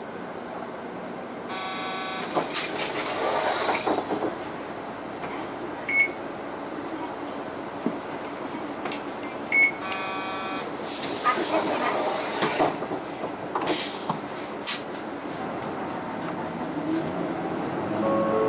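Interior running sound of a Mitsubishi Fuso Aero Midi KK-MK23HM route bus moving slowly in traffic. Twice, about eight seconds apart, a short squealing tone comes, followed by a loud hiss of air lasting a second or two.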